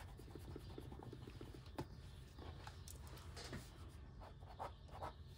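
Faint scratching of a mechanical pencil sketching on paper, with a few light ticks and clicks as the lead strokes and taps the page.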